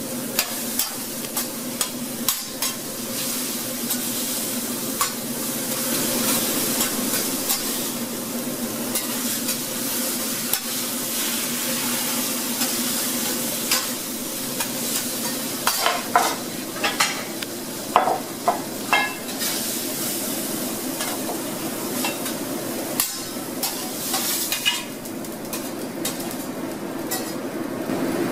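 Egg-white omelette sizzling on a steel flat-top griddle while metal spatulas scrape and tap the griddle surface, with a run of sharp metallic clanks a little past halfway.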